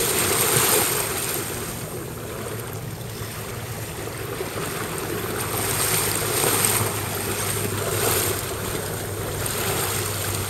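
Wind buffeting the microphone over water rushing along the hull of an Impala 28 sailing yacht under way, swelling louder near the start and again about two-thirds of the way through.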